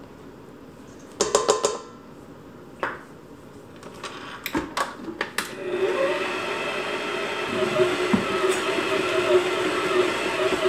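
A few sharp knocks and clicks of plastic and metal as the flour goes in and the mixer's pouring shield is fitted, then, about six seconds in, an electric tilt-head stand mixer starts and runs steadily with a motor hum, its flat beater turning flour and water in the steel bowl.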